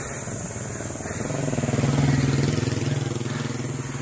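A motor vehicle's engine passing close by: its hum grows louder about a second and a half in, then fades away toward the end, over a steady hiss.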